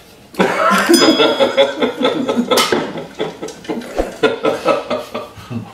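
Several men laughing hard together, breaking out about a third of a second in and tailing off toward the end.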